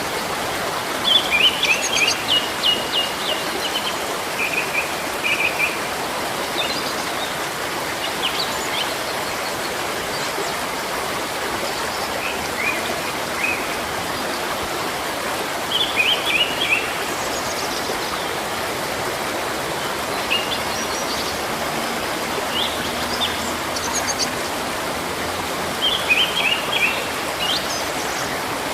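Steady rush of running water, with a songbird chirping over it in short runs of quick high notes every few seconds.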